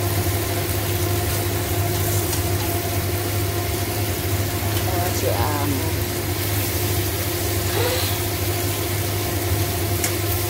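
A steady low mechanical hum with faint sizzling of thin beef slices frying in a nonstick pan as they are turned with chopsticks.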